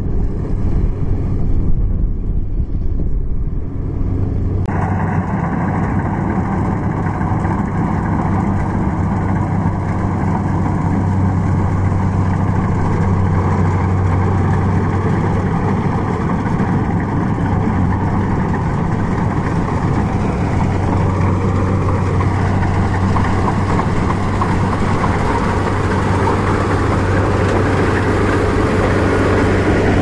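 Kubota DC70 rice combine harvester's diesel engine running steadily with its harvesting machinery, a constant low drone. The noise gets fuller and brighter about five seconds in.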